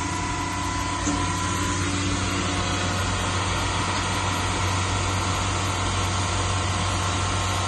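Futura Metalstar 2000 four-sided moulder running, a steady machine hum from its cutter spindle motors, with a few tones that fade out over the first two or three seconds after start-up.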